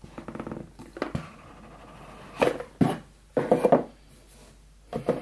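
Cardboard product box being opened by hand: a scraping rub as the packaging slides apart, followed by several short rubs and soft knocks as the box and its contents are handled.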